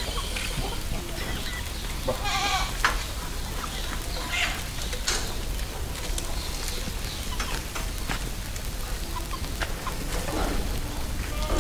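A goat bleats once, about two seconds in, over a steady low background with scattered short knocks.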